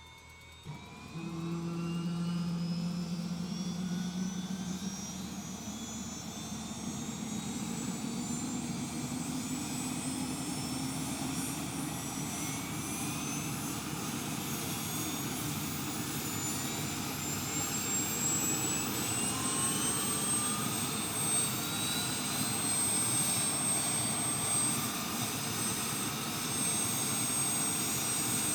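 Helicopter turbine engine winding up: it comes in suddenly about a second in, and its whine rises steadily in pitch for about twenty seconds, then holds at a steady high pitch.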